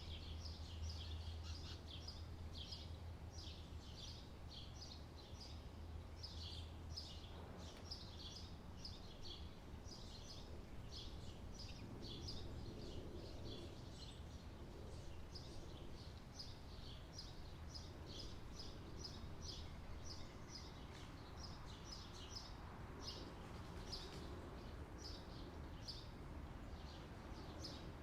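Small songbird chirping over and over, about two short high chirps a second, over a faint low hum of summer outdoor ambience.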